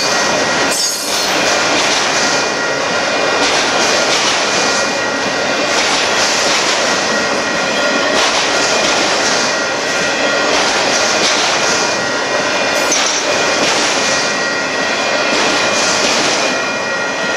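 Freight train of auto rack cars rolling past close by: a steady, loud rush of steel wheels on rail with thin, steady high tones held over it and scattered clacks from wheels over the rail joints.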